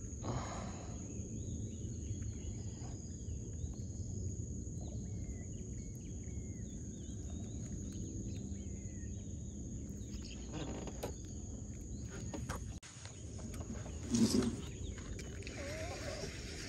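Outdoor river ambience: a steady low rumble, a thin steady high drone like insects, and faint short bird calls, with a brief louder sound about 14 seconds in.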